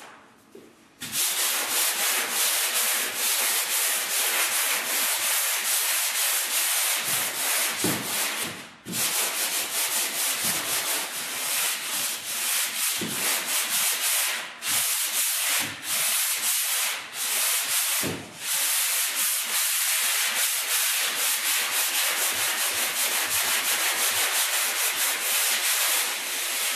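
Handheld sanding block with sandpaper sanding dried drywall joint compound (mud) in up-and-down strokes, to feather a crack repair smooth into the wall. The sanding starts about a second in and runs on with a few brief pauses.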